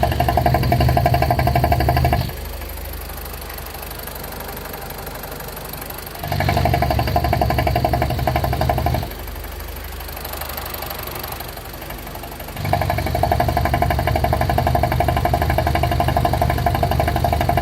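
BMW E46's N42B20 four-cylinder petrol engine running at idle. A louder low drone with a steady whine comes in three times, for a few seconds each, and drops away between without any change in pitch. This is the noise the owner is unsure of, fault or normal.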